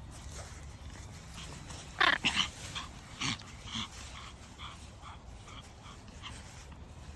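A dog barking: a quick run of loud barks about two seconds in, then a few single barks and fainter calls spaced out over the next few seconds.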